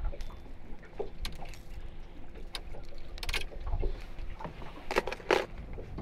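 Water lapping against a small fishing boat's hull, with scattered clicks and knocks as fishing tackle and a lure are handled. The loudest knocks come in a cluster near the end.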